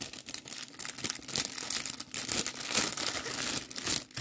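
Clear plastic packaging bag crinkling as it is handled and worked open by hand, an irregular crackle that keeps going.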